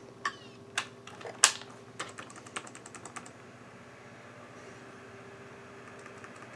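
Keys pressed on an IBM ThinkPad 600E laptop keyboard: a few separate clicks, the loudest about a second and a half in, then a quick even run of lighter taps that stops a little after three seconds, leaving a faint steady hum.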